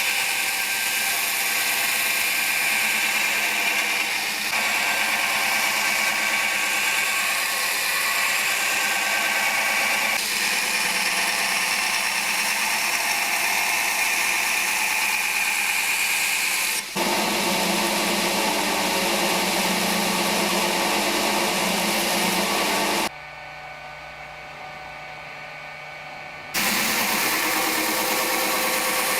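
Electric grinder grinding the forged steel knife blank to shape: a steady, loud whine with a grinding hiss, in several spliced stretches. For a few seconds near the end it drops to a quieter, different running sound before the grinding resumes.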